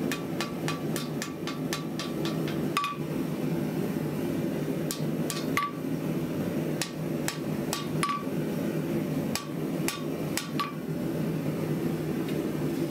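Hand hammer striking red-hot 5160 steel on an anvil while drawing out a blade's tang. Sharp blows each leave a clear ring, coming in quick runs of three or four with short pauses between, over a steady low hum.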